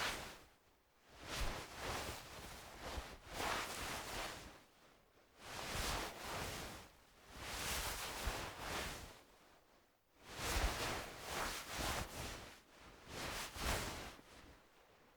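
Clothing fabric rustling and swishing as it is moved, in repeated swells of a second or two each with brief quiet gaps between them.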